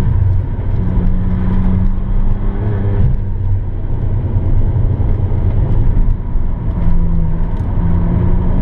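Car engine and road rumble heard from inside the cabin at track speed. The steady engine note breaks off about three seconds in and comes back near the end.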